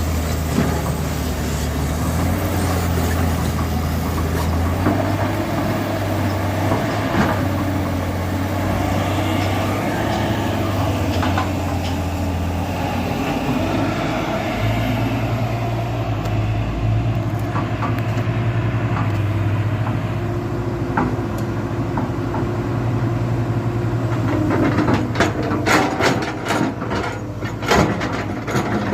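Diesel engine of heavy earthmoving machinery running under changing load, its note shifting a few times. Near the end there is a burst of sharp clanks and knocks.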